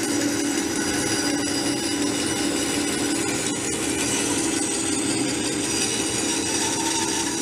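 Bandsaw running steadily, its blade cutting a curve through a round block of wood fed by hand, with a steady motor hum under the hiss of the cut.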